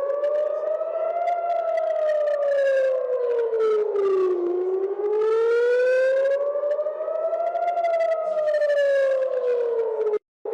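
Civil defence air-raid siren wailing, its pitch slowly rising and falling in long sweeps: a rocket alert warning of incoming rocket fire. The sound drops out for a split second near the end.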